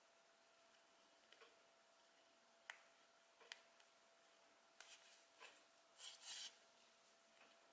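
Faint handling sounds of sewing a crocheted toy by hand: a few light clicks and a short rustle about six seconds in as needle and yarn are drawn through the stitches, over near silence.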